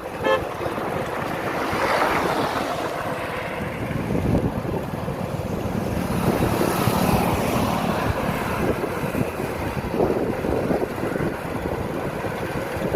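Wind rushing over the microphone and road noise from a moving Hero Honda motorcycle, with a short vehicle horn toot right at the start.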